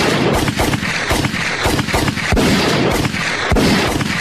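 Loud barrage of bangs: a heavy bang about every 0.6 s over a dense, continuous noisy din.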